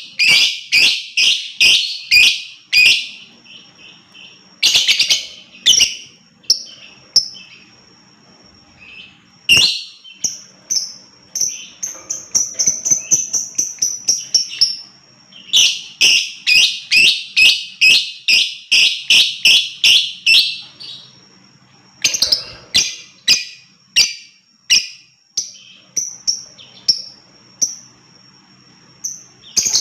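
Lovebird chattering in runs of sharp, high chirps, about three a second, broken by short pauses. There is a longer sliding call partway through, and single chirps spaced apart near the end.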